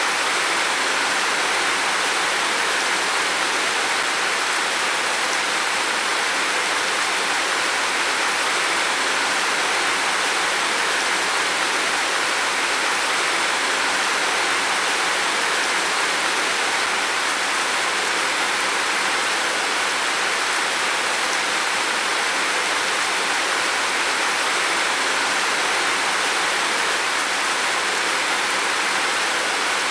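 Heavy rain falling steadily on a roof, a dense, even hiss without a break.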